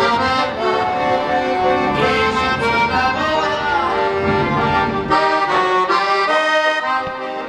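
Piano accordion played live by a busker: a melody of quickly changing notes over sustained chords.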